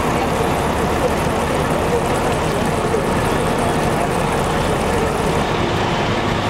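Fire apparatus engine running steadily at high revs, with water spraying and hissing from a leaking hose coupling on a charged supply line; the hiss drops away about five and a half seconds in.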